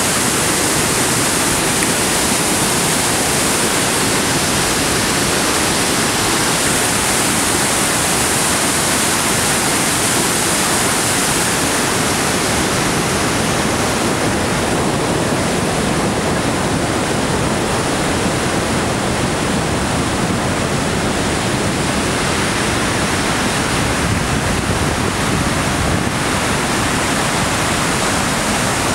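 Hog's Back Falls on the Rideau River, a waterfall in heavy whitewater flow, rushing in a loud, steady roar. The hiss softens slightly about halfway through.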